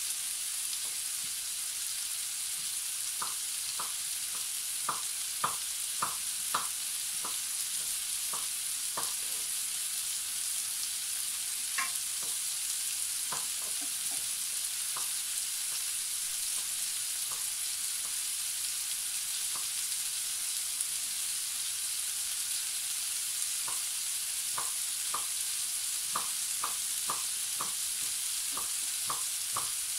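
Diced root vegetables frying in a large roasting pan: a steady sizzle with irregular pops and crackles. The crackles come in clusters a few seconds in and again near the end, with one sharper pop a little before the middle.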